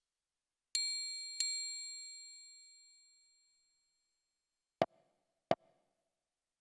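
Casio Casiotone SA-50 mini keyboard sounding two bell-like metallic notes, each ringing and fading over about two seconds. About three seconds later come two short, sharp knock sounds less than a second apart.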